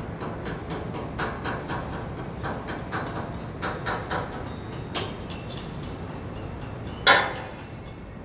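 Outdoor construction-site and city ambience: a steady low rumble with repeated light clicks and knocks, then one loud sharp bang about seven seconds in.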